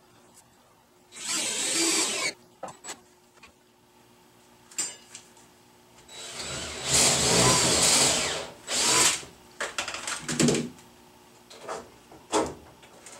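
Cordless drill driving screws into 2x4 lumber: a run of about a second near the start, a longer run of about two seconds in the middle, then a few short bursts.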